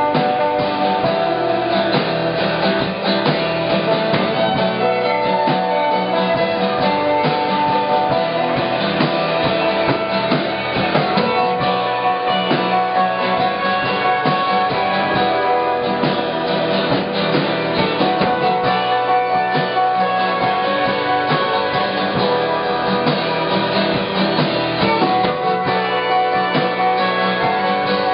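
Live alt-country band playing an instrumental passage: strummed acoustic guitar, electric bass, drum kit, violin and electric guitar, with no singing.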